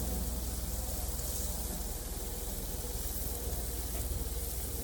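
Sauce-dipped chicken pieces sizzling steadily on a grill, with a steady low hum underneath.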